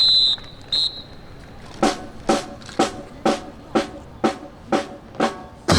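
A whistle blast, one long then one short, followed from about two seconds in by a drum struck on a steady beat, about two strikes a second, keeping time for a marching drill team.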